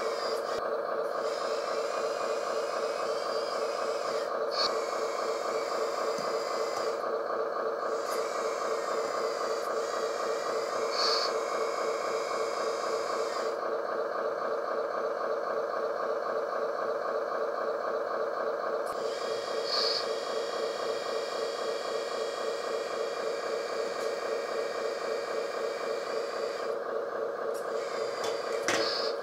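Small electric hydraulic pump of a LESU RC roll-off truck's crane running steadily with a constant whine while the hydraulic grab is worked. A few brief louder blips rise over the whine.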